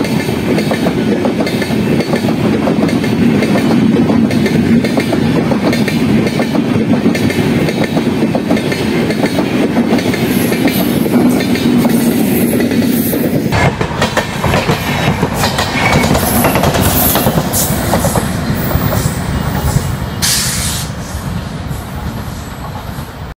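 Shatabdi Express LHB coaches rolling past close by with a steady clickety-clack and rattle of wheels on the rails, ending with the WAP7 electric locomotive pushing at the rear going by. About 13 seconds in the sound changes abruptly to another train running on the line, fading near the end.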